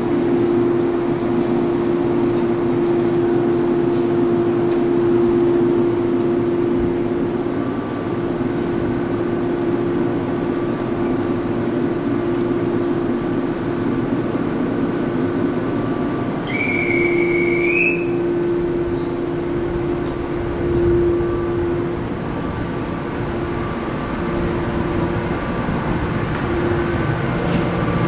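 419 series electric train standing at a platform with a steady hum from its equipment. About halfway through a short, high whistle sounds. Then the train pulls away, with a growing low rumble of wheels and motors.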